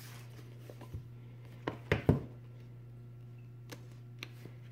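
Cardboard tablet box handled on a stone countertop: a few sharp knocks around two seconds in, then light clicks as the tape seal is cut with a box cutter, over a steady low hum.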